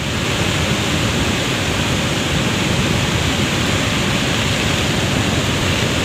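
A muddy river in flash flood, rushing past in a steady, unbroken wash of noise.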